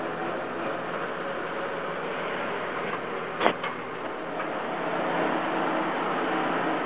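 Small aircraft tow tug's engine running steadily as it tows a plane, with one sharp knock about three and a half seconds in.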